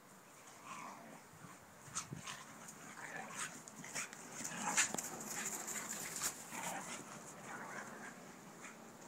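Two dogs, an American Mastiff and a Mini Australian Shepherd, playing: short dog vocal sounds mixed with scattered clicks and scuffling rustles, busiest in the middle.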